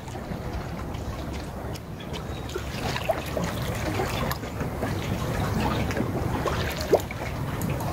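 Harbour water lapping and trickling against the rocks and moored boats, with wind rumbling on the microphone and many small scattered ticks. There is one sharper click near the end.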